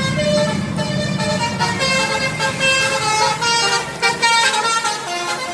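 Bus 'telolet' horn of the Basuri multi-tone type playing a melody of quickly changing notes, with a low hum underneath in the first second or so.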